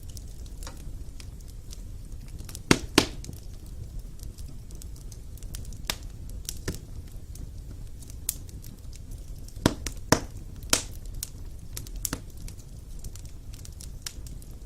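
Wood fire in an open fireplace crackling, over a low steady rumble, with irregular sharp pops, a few of them louder: two close together about three seconds in and a cluster around ten seconds.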